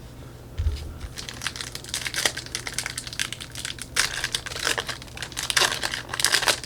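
Crinkling and crackling of trading-card packaging and cards being handled, in a rapid, irregular string of crackles, with a soft thump about half a second in.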